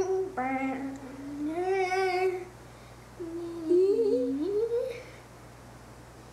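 Girls humming a wordless tune in long held notes, one of them wavering in pitch; briefly two voices at once a little past the middle, and it stops about five seconds in.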